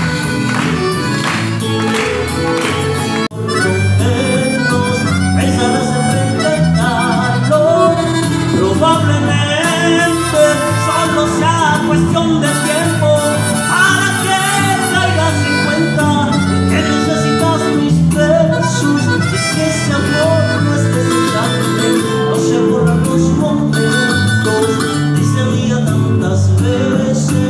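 Male singer singing a Latin popular-music song into a handheld microphone over instrumental accompaniment. In the first three seconds there is hand-clapping along with the music, and the sound cuts briefly about three seconds in.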